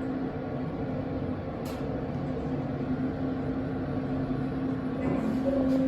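Steady hum inside a moving elevator car, with the car's ventilation fan running throughout; a faint click about a third of the way in.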